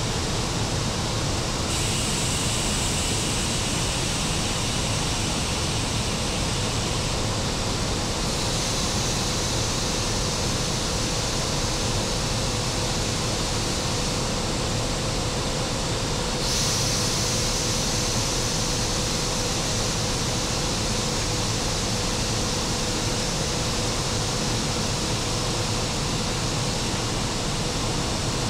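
Steady rushing machine-room noise of an E 94 electric locomotive running, with a faint steady hum joining in about six seconds in; the hiss shifts in tone a few times.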